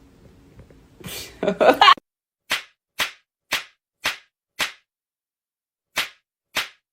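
A short cry, then seven sharp slap-like smacks in dead silence, about half a second apart, with a pause of over a second before the last two.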